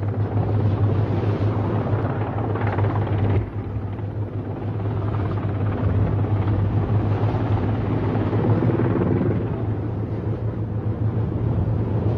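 A landing craft's engines droning steadily under the rush of water and wind as its bow pushes through rough sea, with a brief dip about three and a half seconds in.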